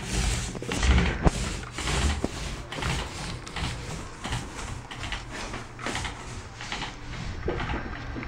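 Repeated strokes of paint being applied to a wall, about two or three a second, with a low rumble in the first couple of seconds.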